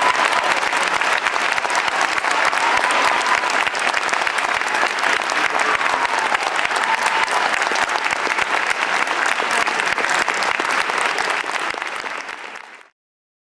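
Audience applauding, a dense steady clapping that fades and then cuts off abruptly near the end.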